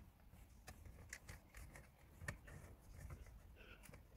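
Near silence, with faint scattered clicks and rustles of hands working EL wire along the plastic dashboard and console trim.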